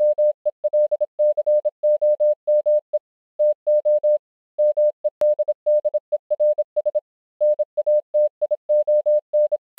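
Morse-code-style beeping: a single steady electronic tone, fairly high, keyed on and off in short and long beeps, in groups separated by brief pauses.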